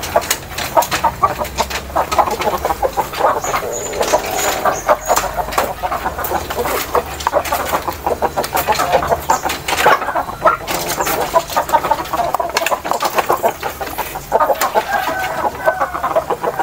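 Bangkok gamecocks and hens clucking continuously while they feed, over a dense patter of sharp clicks from beaks pecking feed in wooden troughs. A louder call from one bird comes near the end.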